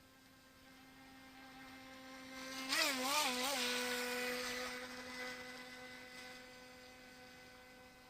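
Electric motor of a UDI Rapid RC speedboat whining at a steady pitch, with a hiss of water spray, growing louder as it approaches. About three seconds in it is loudest and the pitch wavers briefly three times, then it fades as the boat runs away.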